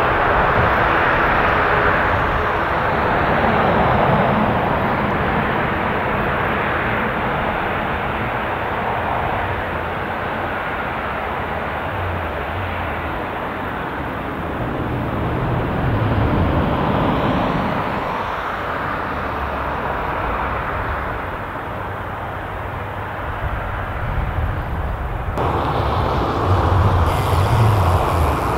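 Aircraft engines running: a steady rumble and hiss that swells and fades, with faint steady tones in the first few seconds. The sound changes abruptly near the end to a brighter hiss.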